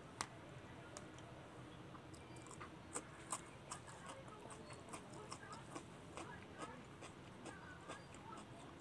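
Close-miked chewing of a mouthful of masala Maggi noodles: soft, wet mouth clicks and lip smacks at an irregular pace, with a sharper click just after the start.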